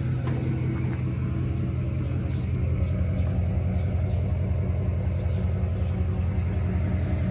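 Diesel pickup truck engine idling steadily with a low, even rumble.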